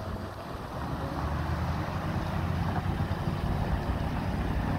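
1983 GMC 6500 grain truck's gasoline engine running as the truck drives by on gravel, growing louder as it comes near.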